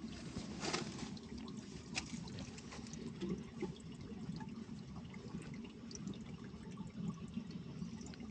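Water running steadily, with scattered light clicks over it.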